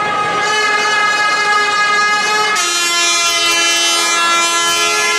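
Long, steady horn blasts in a large hall. About two and a half seconds in, the tone changes as a lower horn note joins, and it all stops right at the end.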